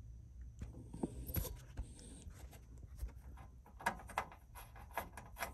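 A small screwdriver driving screws into a steel amplifier case: light, scattered metal clicks and scrapes, busier in the second half.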